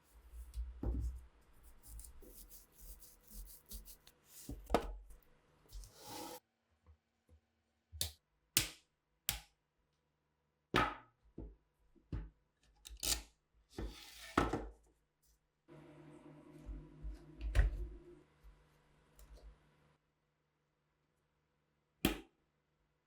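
Rifle parts and hand tools being handled on a workbench: separate sharp clicks and knocks, with stretches of rubbing and scraping that start and cut off abruptly.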